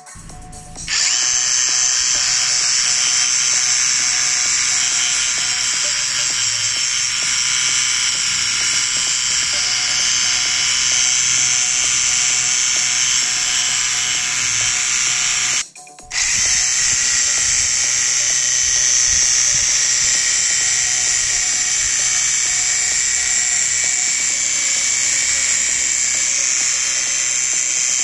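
Cordless drill running a drill-driven water pump attachment, spraying a jet of water from a brass nozzle: a steady, high motor whir and spray hiss. It stops for a moment a little past halfway, then runs on.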